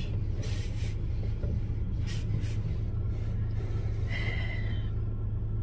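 Steady low hum of a car idling, heard from inside the cabin, with a few faint hisses now and then.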